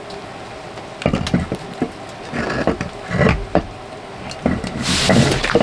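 A metal pan being set down and shifted on the top of a burning Swedish-torch log stove: a string of irregular knocks and scrapes of metal on the slotted log, starting about a second in.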